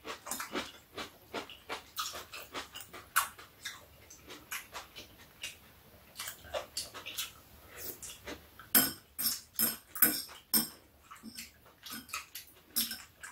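Two people eating at a table: chewing and lip-smacking, with metal chopsticks clicking against bowls and dishes. The irregular clicks and smacks come a few per second, with a louder run about nine to ten and a half seconds in.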